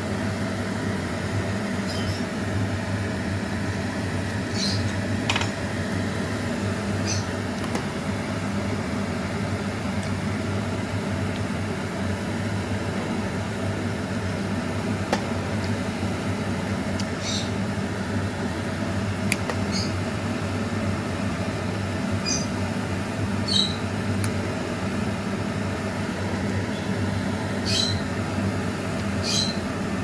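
A pot of soup boiling hard on an electric stove under a steady hum, with a dozen or so light, sharp clicks of a metal ladle and fork against the pot as it is stirred.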